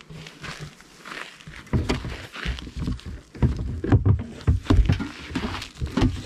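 Footsteps through dry grass and twigs, with rustling, crackling and irregular low thuds that begin about two seconds in.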